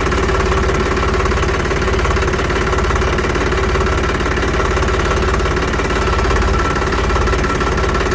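Tractor engine idling with the hydraulic power steering held at full lock, giving a steady whine over the engine note. The whine is oil bypassing through the steering system because the ram has reached the end of its travel; the mechanic says this is normal.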